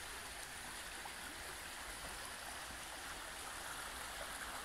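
Shallow brook running over stones: a steady rush of flowing water.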